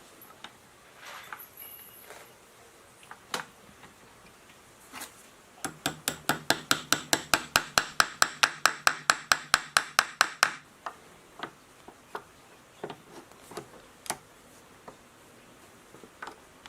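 A hand tool working metal: a fast, even run of sharp metallic clicks, about six a second, lasting about five seconds in the middle, with scattered single knocks and taps before and after.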